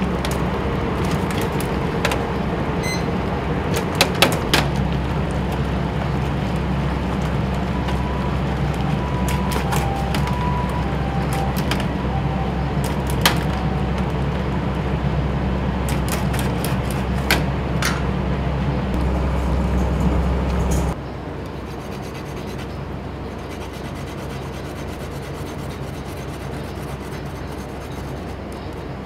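Noodle boiler at full boil, with a steady low rumble from the burner and boiling water and scattered sharp metal clinks of the noodle strainer baskets. A faint two-note tone repeats a few times midway. About two-thirds of the way through the rumble cuts off and gives way to a quieter, steady fan hum.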